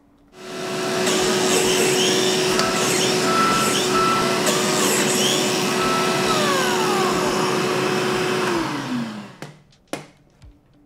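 Makita cordless biscuit joiner running, with a dust-extractor vacuum drawing through its hose, as it cuts biscuit slots into the edge of a plywood panel. It runs steadily for about eight seconds and then winds down with a falling hum. A couple of sharp knocks follow near the end.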